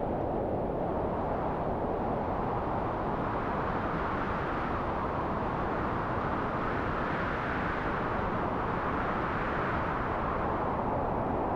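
High storm wind blowing steadily, a rushing noise whose pitch swells higher through the middle and sinks back near the end.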